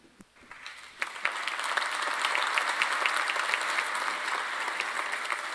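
Audience applauding: many hands clapping, starting about a second in and dying away near the end.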